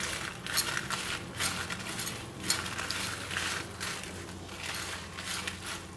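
Steel spatula stirring and scraping dry red chillies, lentils and seeds around a kadai as they fry in a little oil, about two scraping strokes a second.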